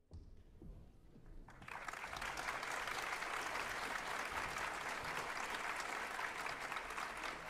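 Concert audience applauding to greet the pianist walking on stage. Faint room noise gives way to steady applause about a second and a half in.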